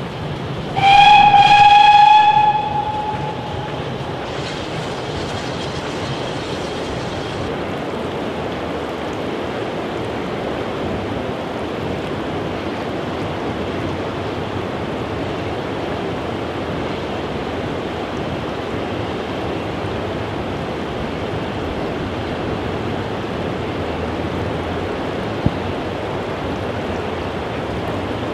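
Steam locomotive whistle: one loud, steady-pitched blast about a second in, lasting about a second and a half, followed a few seconds later by a fainter high hiss, all over a steady rushing noise from the train.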